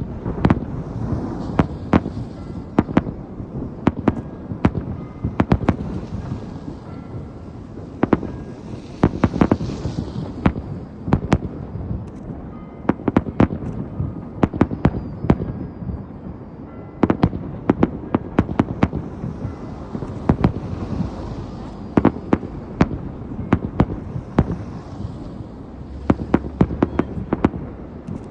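Fireworks salute: many sharp bangs in quick clusters, one after another, over a continuous low rumble.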